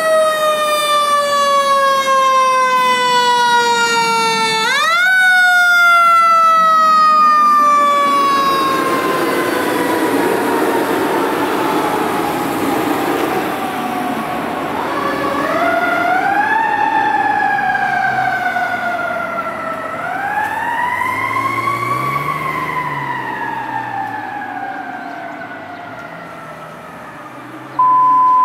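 Federal Q mechanical sirens on fire trucks, wound up sharply and then coasting down in long falling wails. They are wound up again several times and grow fainter as the trucks move away. Near the end, a steady one-second radio alert tone.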